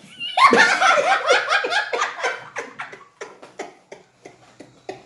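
A person laughing hard in a quick run of about four bursts a second, loudest at the start, trailing off into fainter breathy giggles.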